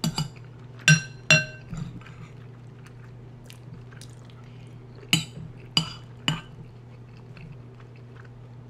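Eating utensil clinking against a bowl of stew, about seven light strikes: two right at the start, two about a second in that ring briefly, and three more around five to six seconds in.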